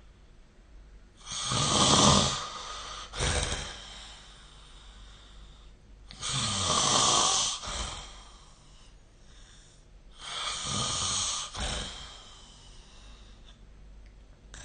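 A person snoring in their sleep: three long snores about four seconds apart, each with a short, quieter burst right after it.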